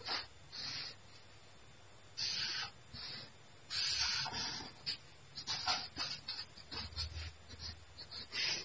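Marker pen drawing lines on a sheet of paper: a run of short scratchy strokes, a few of them longer than half a second, separated by brief pauses.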